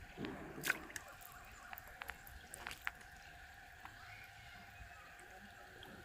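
Faint small water sounds, light lapping and dripping at the pond's surface, with scattered short ticks.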